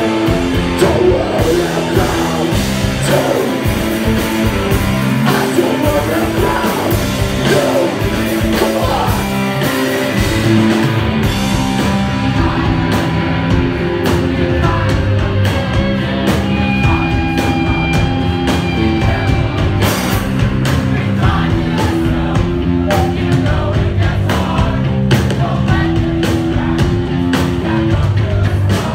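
A punk rock band playing live: electric guitars, bass and drums, with a singer's voice over them.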